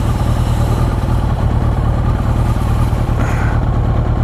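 Motorcycle engine running steadily, picked up through a helmet-mounted microphone.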